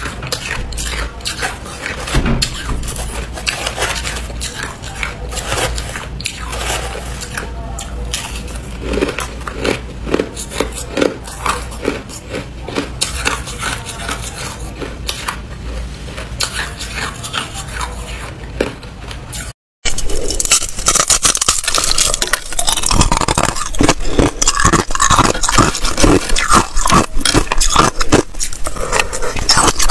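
Close-miked crunching and chewing of crushed ice, with scraping and clinking against a glass bowl. After a brief dropout about two-thirds through, the crunching of bites from a solid block of ice is much louder and denser.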